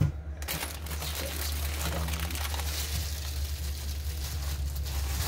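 Static hiss from the speaker of a Retevis Ailunce HS4 10-metre radio, switched on and receiving. A click comes first, and the steady hiss starts abruptly about half a second later.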